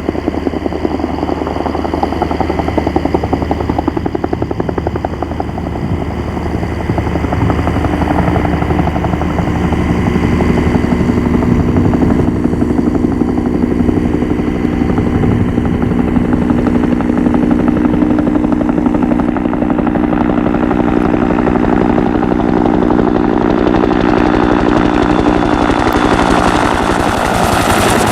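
Bell UH-1 Huey helicopter, its two-blade main rotor beating in a fast, even chop over the single turboshaft engine. It grows louder about seven seconds in, a steady droning tone joins it, and a rushing noise rises near the end.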